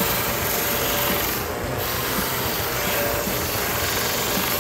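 1x30 belt sander running with the edge of a glued leather magazine holder pressed against the moving belt, a steady rasping grind as the leather edge is sanded. The rasp thins briefly about a second and a half in.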